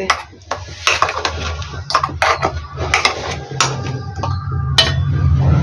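Steel spoon scraping and clinking inside a steel mixer-grinder jar as ground mustard paste is scooped out into a steel bowl: a run of irregular scrapes and knocks over a steady low hum.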